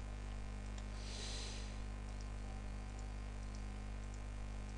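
Steady electrical mains hum picked up by the recording microphone, with a few faint clicks and a short soft hiss about a second in.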